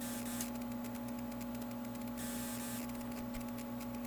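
Steady electrical hum from running bench electronics, with a faint fine crackling buzz over it.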